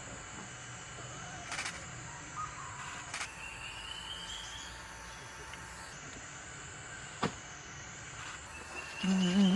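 Tropical forest ambience with a steady high insect drone. A bird gives a rising whistle twice, there are a few sharp clicks, and a loud low call falling in pitch comes near the end.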